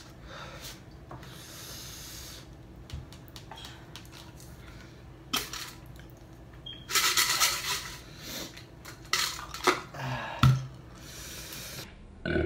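Coins scraping scratch-off lottery tickets on a tabletop, with clinks and knocks from a metal tumbler and its lid being handled. Scattered sharp clicks, with a louder stretch of scraping about seven seconds in.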